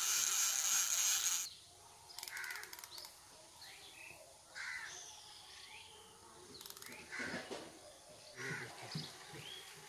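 Ratchet of a large brass fishing reel clicking rapidly for about a second and a half, then two shorter bursts of reel clicks, with birds calling in between.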